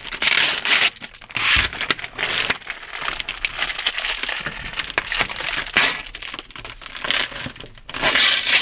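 Paper rustling and crumpling as it is wiped and pressed against a clear partition window, in irregular bursts with small clicks. The loudest burst comes near the end.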